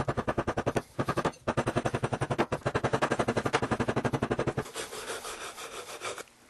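Wooden sand rammer pounding oil-bonded Petrobond sand into a wooden casting flask, a rapid even run of knocks about ten a second. After about four and a half seconds it gives way to a fainter, quick rasping as a wooden strike-off bar scrapes the excess sand off the top of the flask.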